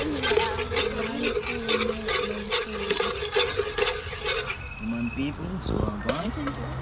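Metal spoon stirring in a metal pot, scraping and clinking against it in quick repeated clicks that stop about four and a half seconds in.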